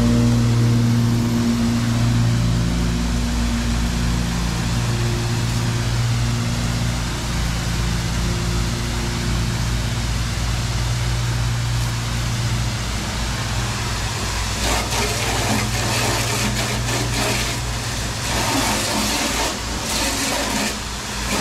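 Pressure washer engine running steadily under load, with a water-spray hiss that grows rougher and louder over the last several seconds.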